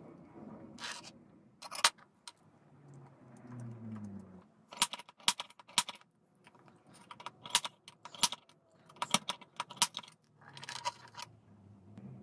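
Sharp metallic clicks and clinks, coming in several quick clusters, as a steel spade drill bit is handled on a wooden surface and a small pointed tool taps and scrapes on its blade.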